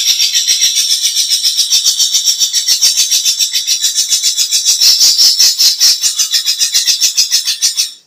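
Cucak ijo (green leafbird) singing a long, fast, unbroken chattering run of high notes, about ten a second, that breaks off right at the end.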